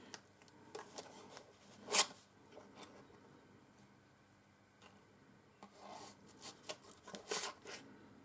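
Scattered scraping and rubbing strokes of hand work on metal: one louder stroke about two seconds in, then a quick run of strokes near the end.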